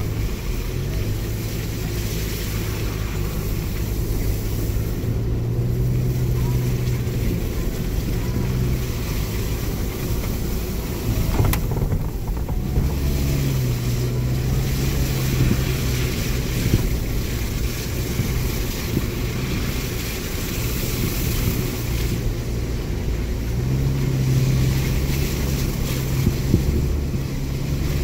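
Car engine running at low speed, heard from inside the cabin, with steady road noise from tyres on a snow-covered lane. The engine note goes up and back down three times as it pulls, with a few brief knocks.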